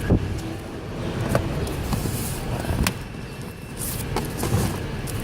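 Cardboard box and packaging being handled: a few sharp knocks and short rustles over a steady low background rumble.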